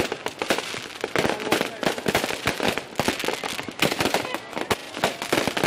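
New Year's fireworks going off in a rapid, irregular run of cracks and bangs, several a second, with crowd voices mixed in.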